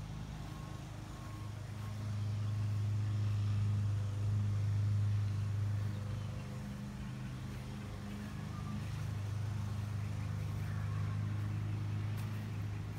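Steady low droning hum of a motor or engine running, one unchanging pitch with its overtones, swelling slightly a few seconds in.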